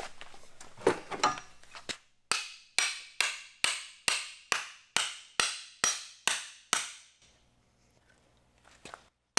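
Eleven sharp hammer blows, evenly spaced about half a second apart, driving a glued wooden mallet head onto its handle. They stop about seven seconds in, and one more blow lands at the end.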